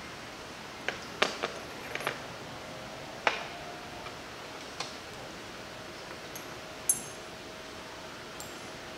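Glass test tubes and droppers clinking and tapping against a wire test-tube rack: a scatter of sharp light clicks, a few at a time, the loudest about a second in, about three seconds in and near seven seconds, over a steady hiss.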